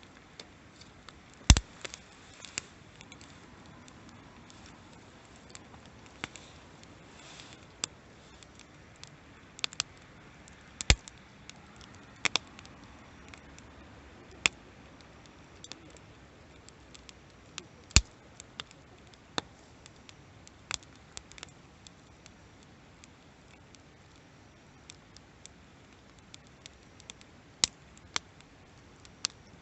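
Wood fire crackling: irregular sharp pops and snaps over a faint steady hiss, a few of them much louder than the rest.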